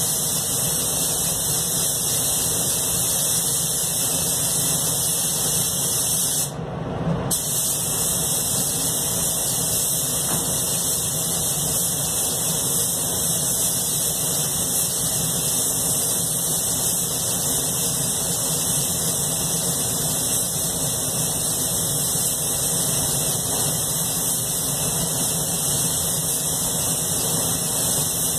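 Anest Iwata Classic Plus spray gun hissing steadily as compressed air atomises paint, over a steady lower hum. The hiss cuts out briefly about six and a half seconds in, as the trigger is let go between passes.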